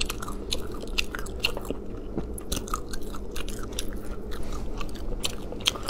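Chewing spicy beef tendon strips (niu banjin): a run of small, irregular clicks and crunches from the mouth.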